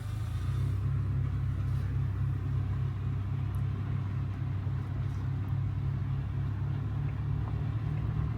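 Car engine and road rumble heard from inside a moving vehicle, a steady low drone.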